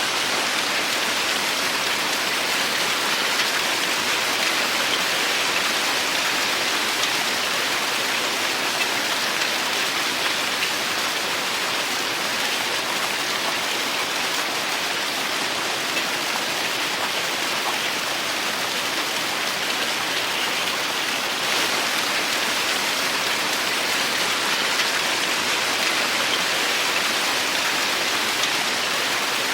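Heavy rain falling steadily, an even hiss of raindrops with no pauses or changes.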